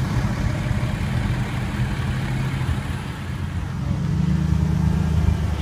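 Car engines idling with a steady low drone, which grows a little louder about four seconds in.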